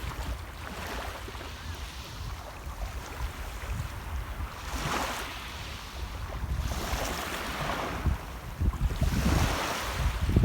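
Sea waves washing onto the shore, the hiss of the surf swelling three times in the second half, about two seconds apart. Under it runs a low, fluttering rumble of wind on the microphone.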